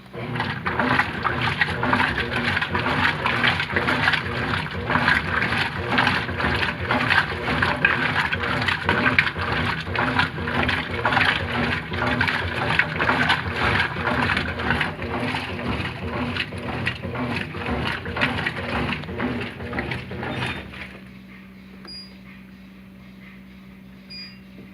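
Brastemp Ative 11 kg top-loading washing machine agitating: water churning and sloshing in rhythmic back-and-forth strokes. It stops suddenly about 21 seconds in, leaving a steady low hum.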